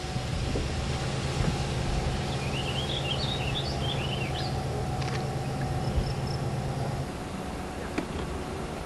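A steady engine hum, with a songbird twittering a quick run of chirps from about two and a half to four and a half seconds in. The hum drops away about seven seconds in.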